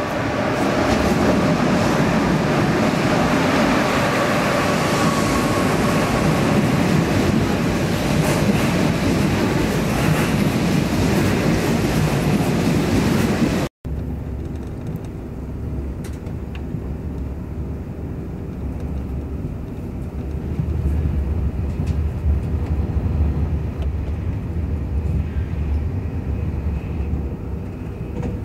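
TGV POS high-speed train running in past a station platform: loud rolling noise with a steady whine. After a cut about halfway, the low steady rumble inside the passenger car at about 160 km/h, swelling a little near the end.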